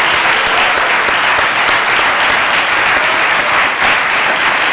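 Studio audience applauding, a dense, steady patter of many hands clapping.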